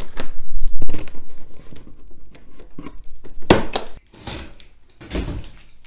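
Plastic strapping bands on a cardboard shipping box being cut, with sharp snaps in the first second. Then a box cutter slits the packing tape along the lid seam in a few cutting, tearing strokes.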